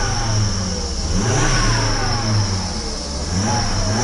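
Volvo car engine being blipped on the throttle, the revs rising and falling about three times. The engine had just stalled when throttle was given and now revs eagerly.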